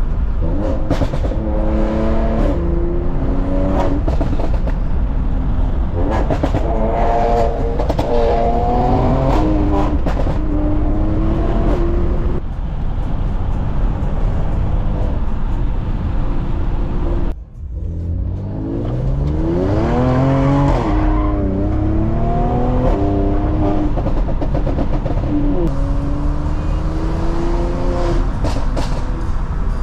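Mercedes-AMG C43 engine and exhaust pulling through the gears: the revs climb, drop at each shift and climb again, repeatedly, over steady road and tyre noise. About two-thirds through, the sound dips sharply for a moment before the revs rise again.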